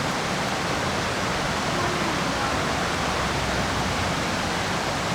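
Steady rush of fast river water tumbling over rapids, with faint voices under it.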